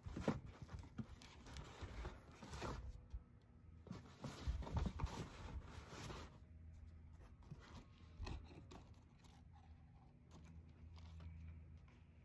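Wind gusting on the microphone and cardboard rustling and scraping as an orange Louis Vuitton gift box is handled, in irregular bursts for the first six seconds or so. After that it settles to a faint steady low hum with one knock about eight seconds in.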